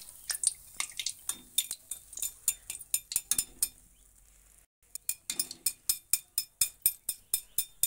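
Metal clinks of a wire strainer and ladle knocking against the kadhai as fried pakodas are lifted out and drained of oil: a run of sharp taps, a brief pause about four seconds in, then a steadier run of about four taps a second.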